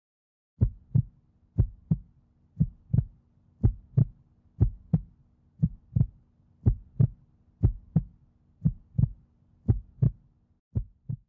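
Heartbeat sound effect: a steady lub-dub double thump about once a second, over a faint steady hum.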